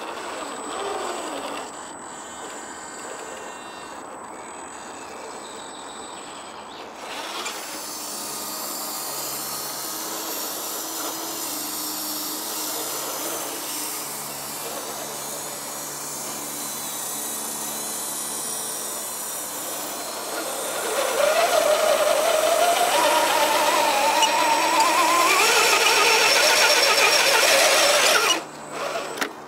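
Brushed electric motor and geartrain of an Axial UMG10 RC rock crawler whining under load as the truck climbs a steep rock face. In the last several seconds the whine gets louder and rises in pitch, then cuts off abruptly near the end.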